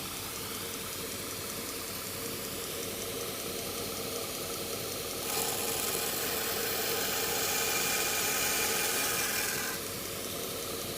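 AmeriBrade belt grinder running with a 120-grit belt. About five seconds in, a steel knife blade is pressed to the belt and a louder grinding hiss lasts about four and a half seconds, then eases off back to the motor and belt running free.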